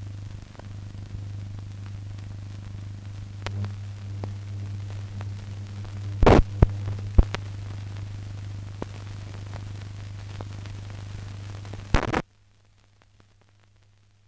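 Steady low electrical hum with hiss and a few sharp pops and clicks: the noise of a blank film soundtrack with no programme sound on it. It cuts off abruptly about twelve seconds in, dropping to a much quieter floor.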